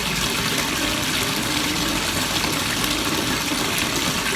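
Bathtub tap running steadily, filling the tub with water.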